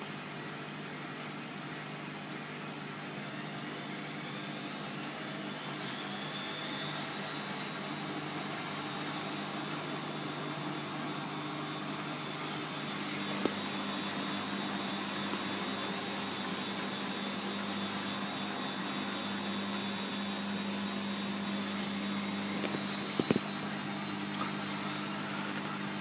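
Bosch WFF2000 washing machine spinning up for its final spin: the motor's whine rises in pitch over the first several seconds, then holds steady over a steady hum as the drum runs at speed on its way to 800 rpm.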